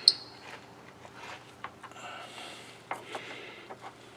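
Clinks and taps of a steel socket being tried on a bolt and hand tools being handled: a sharp double clink right at the start, then scattered lighter clicks and rubbing.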